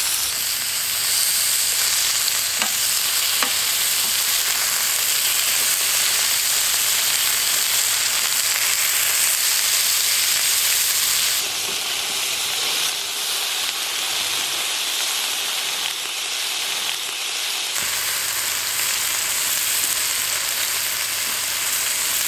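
Lamb rack sizzling loudly on an iron griddle over a wood fire, a steady dense hiss of fat frying, with a few faint pops. The sizzle thins and shifts in character for several seconds in the middle, then comes back fuller.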